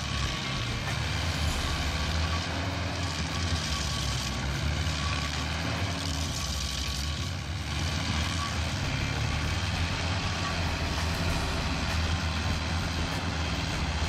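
Stump grinder's engine running steadily under load while its toothed cutter wheel grinds into a tree stump, with a faint steady whine over the low engine hum.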